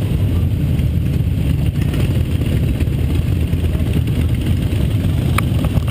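Cruiser motorcycle engines idling with a steady low rumble. A brief high chirp sounds near the end.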